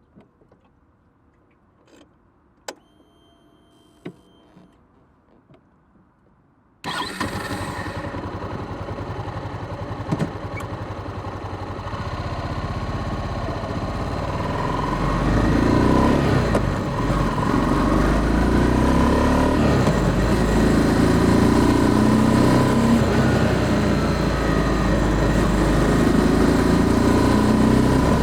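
Honda CB300F Twister's single-cylinder engine, recorded from under the seat: a few faint clicks, then the engine starts suddenly about a quarter of the way in and runs, growing louder around the middle and then holding steady.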